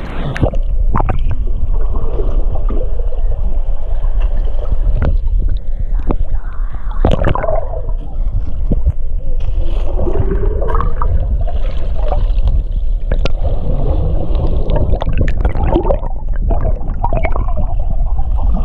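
Underwater camera audio: a muffled, steady low rumble of moving water with gurgling bubbles and scattered knocks as a swimmer kicks past with fins.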